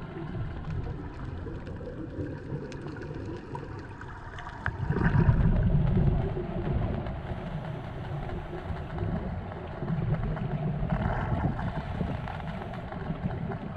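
Underwater sound of a scuba diver breathing through a regulator: exhaled bubbles rumble loudly about five seconds in and again around eleven seconds, over a steady background hum.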